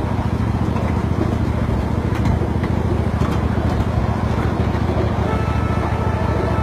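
Miniature ride-on train running steadily, a continuous low rumble of its motor and wheels heard from aboard.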